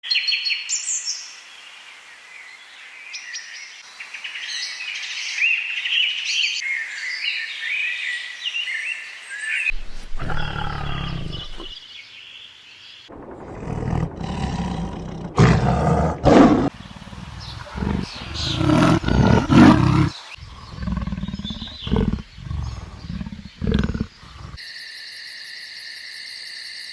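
A series of animal calls: about ten seconds of high bird chirping, then loud, deep calls and roars from a large animal in several bouts, then a steady buzzing trill near the end.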